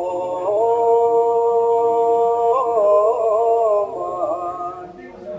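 A voice chanting a mantra, holding long steady notes and then wavering in pitch before it stops near the end.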